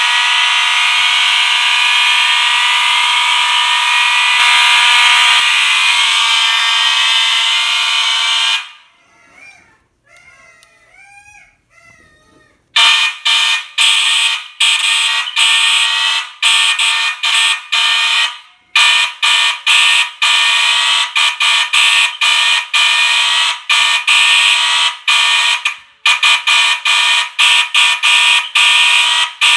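A collection of fire alarm horns and sirens sounding together: a loud, dense mix of steady tones with a repeating rising whoop. About eight seconds in they cut out, leaving only a faint rising-and-falling tone for about four seconds. Then the alarms come back, sounding in rapid on-off pulses.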